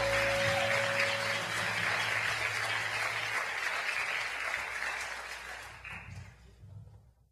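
Audience applauding after the song, while the last low notes of the band's final chord ring out and die away in the first few seconds. The applause fades steadily and then cuts off abruptly near the end.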